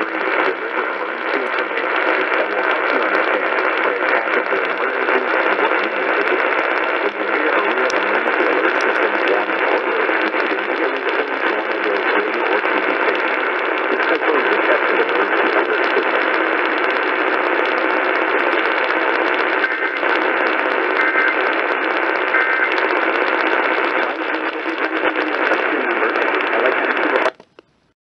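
A Kaito Voyager Pro radio's speaker giving out a weak, static-filled station: a steady wash of hiss with a voice faintly buried in it. The sound cuts off abruptly about a second before the end.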